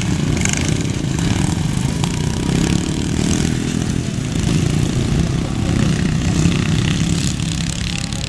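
Several small lawn-tractor engines running together as the pack pulls away from a standing start and races off.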